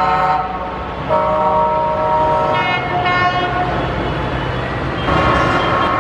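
Horns of passing trucks and tractors sounding in several long blasts, one after another and at different pitches, over the steady low rumble of their engines.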